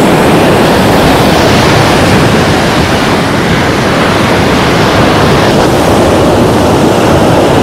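Loud, steady rush of sea surf at the shoreline, mixed with wind buffeting the microphone.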